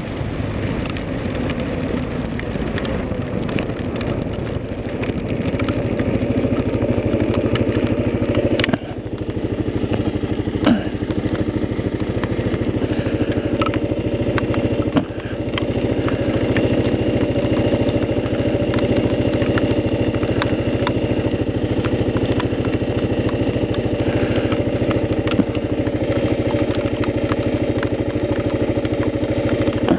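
Kawasaki KLR's single-cylinder engine running steadily while the motorcycle rides in rain, over a hiss of wind and wet road. The engine sound dips briefly twice, about nine and fifteen seconds in.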